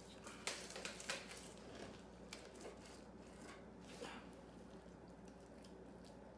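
Fillet knife cutting along a white bass's backbone and over its rib bones: a few faint scrapes and ticks, the clearest about half a second and a second in.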